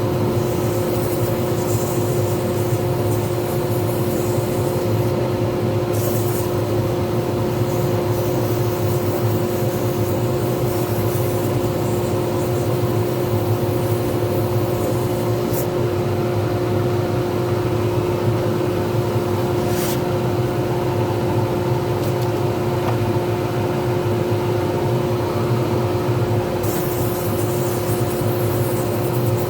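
Lathe running steadily while turning a resin pen blank: an even motor hum and whine holding a constant pitch, with brief hissy patches coming and going.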